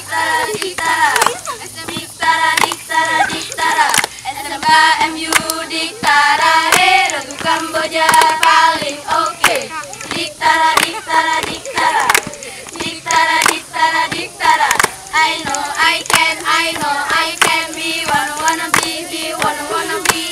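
A group of girls singing a Pramuka scout cheer (yel-yel) in unison, clapping their hands in a steady rhythm.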